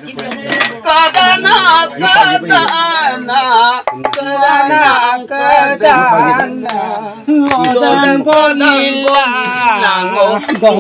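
A man singing an Oi Nitom, a Mising folk song, in phrases with a wavering, ornamented melody.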